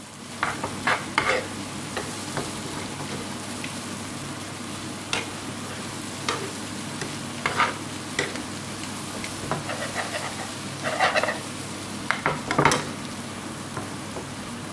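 Bottle gourd chunks and prawns being stirred in a non-stick frying pan over a gas flame: a steady sizzle of frying, broken by irregular scrapes and knocks of the spoon against the pan.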